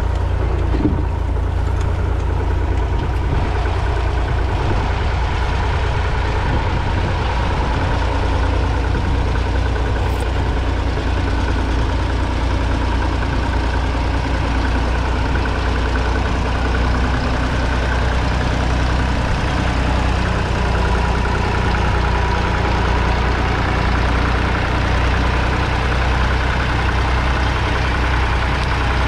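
Fordson Super Dexta's 2.5-litre three-cylinder diesel engine running steadily under load, pulling a two-furrow mounted plough.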